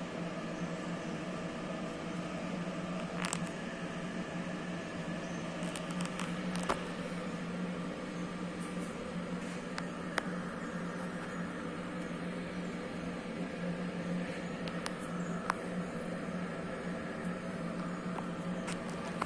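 CNC milling machine running with a steady hum, a few sharp clicks scattered through it.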